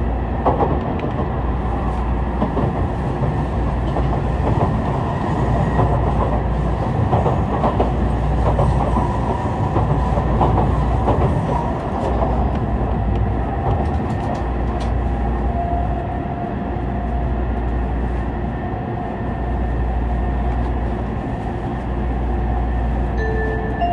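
Tokaido Shinkansen train running, a steady rumble with scattered wheel clicks, heard from inside a passenger car. The onboard chime starts up just at the end.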